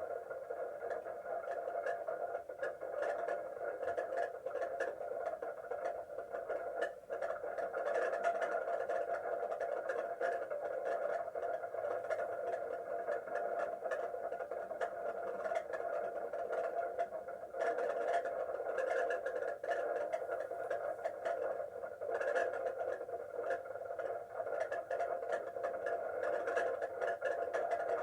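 Outdoor tornado warning siren sounding a steady wail, heard at a distance through a webcam livestream's audio, with the level dipping briefly twice.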